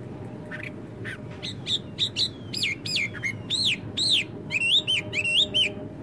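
A blackbird singing a quick run of clear whistled notes, each rising and falling in pitch, starting about half a second in and stopping just before the end. Under it runs a steady low background rumble.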